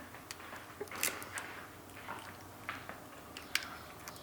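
Scattered light clicks and brief rubbing sounds of car brake parts being handled and wiped clean by hand.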